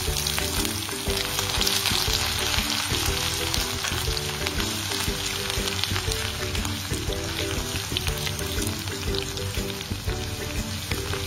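Crushed garlic frying in hot coconut oil with spluttering mustard seeds in a kadai: a steady sizzle with many small crackling pops, as the garlic is stirred with a wooden spatula.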